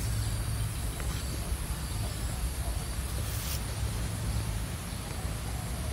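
Low, steady rumble with a faint background hiss, and a brief rustle about three and a half seconds in.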